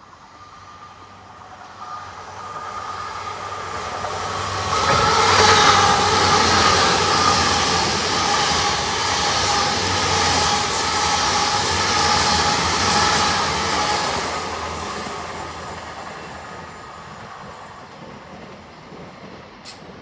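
Passenger train passing through the station at speed: the noise of wheels on rail builds as it approaches, is loudest for several seconds as the coaches pass, then fades away. A held whine runs through the rumble, with a few faint high squeals.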